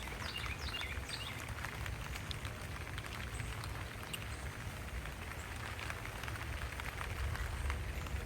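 Light rain falling, with scattered drop ticks over a steady low rumble of wind on the microphone. A bird gives a few quick descending chirps within the first second.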